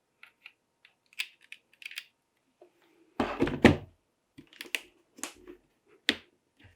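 Irregular clicks and knocks from a Womier K66 mechanical keyboard being handled, with a heavier clatter and thump about three seconds in.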